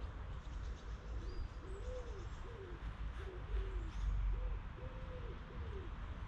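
A pigeon cooing in a run of repeated soft, arching notes, with faint chirps of small birds above it and a low steady rumble underneath.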